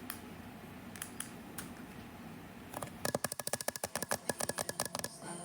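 A few scattered faint clicks, then about three seconds in a fast run of sharp clicks, roughly a dozen a second, lasting about two seconds.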